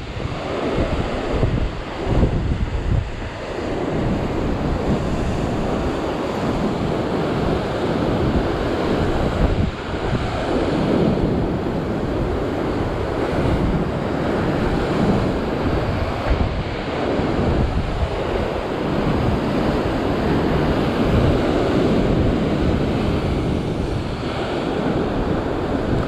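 Heavy surf breaking and churning against a rock ledge, a loud continuous rush that swells again and again as waves come in, with wind buffeting the microphone.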